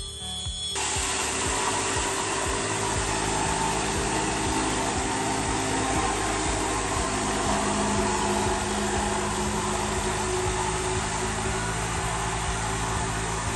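A Dongcheng electric jigsaw cutting through a laminated chipboard cabinet top, with a vacuum hose sucking up the dust at the blade. The combined motor and suction noise comes in about a second in and then runs steadily.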